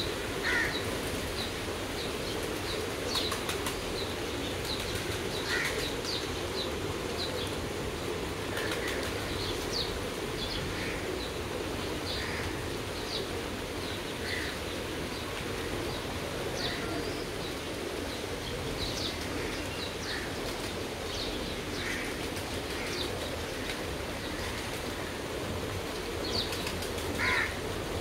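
Steady rain with pigeons flapping their wings as they bathe in it, and short high bird chirps every second or two.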